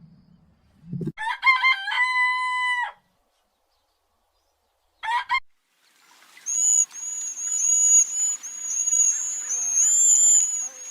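Rooster crowing once, a few short notes running into a long held one. A brief call follows about five seconds in. From about six seconds there is a busy run of many overlapping high, thin peeping calls.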